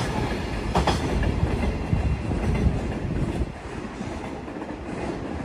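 Freight train's container wagons rolling past, wheels clacking over rail joints with a low rumble. The last wagons go by about three and a half seconds in, and the sound falls away as the train moves off.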